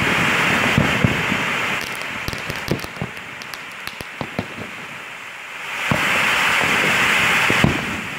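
Fireworks going off: a dense crackling hiss with sharp pops in it, easing to scattered separate pops about two seconds in, then loud and dense again from about six seconds in.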